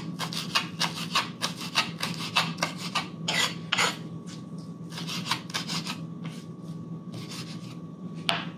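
Kitchen knife chopping fresh cilantro on a wooden cutting board: a quick run of blade strokes, about four a second, thinning out to scattered strokes in the second half.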